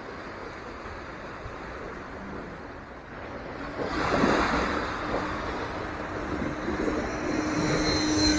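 Wind and surf noise, with a louder rush about four seconds in, then the 12-blade 70 mm electric ducted fan of a Dynam Meteor V3 RC jet coming in on a low pass: a steady hum with a high fan whine, growing louder toward the end.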